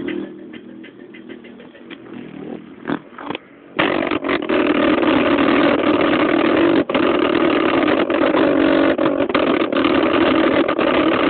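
Car audio system with a JBL subwoofer playing bass, quieter at first, then cutting in loud and steady about four seconds in.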